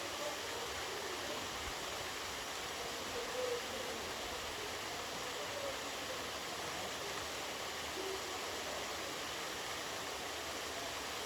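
Steady rush of a waterfall's falling water, with a few faint, short calls heard over it.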